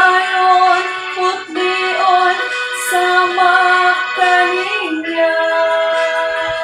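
A woman singing a slow song, holding long notes and moving between them every second or so.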